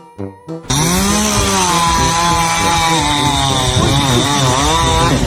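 A loud motor running with its pitch dipping and rising. It cuts in abruptly just under a second in, after a few short notes of music.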